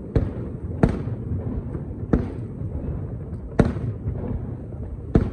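Aerial firework shells bursting: five sharp bangs, irregularly spaced about one to one and a half seconds apart, with steady low noise between them.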